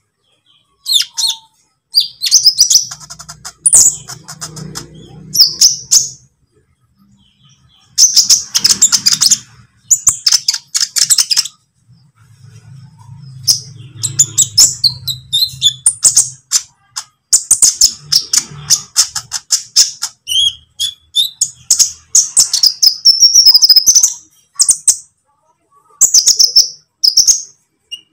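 Olive-backed sunbird singing: rapid, high-pitched chirps and trills in bursts of one to a few seconds, with short pauses between.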